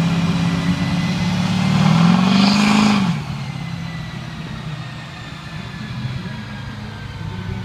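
A Duramax LLY 6.6-litre V8 turbodiesel with a turbo-back exhaust running flat out on a chassis dyno. The engine note climbs in pitch and then drops off sharply about three seconds in as the pull ends, falling back to a lower run while a faint turbo whistle winds down.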